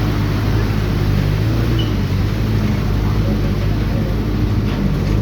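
A vehicle engine running steadily while driving, a continuous low drone with a steady hum.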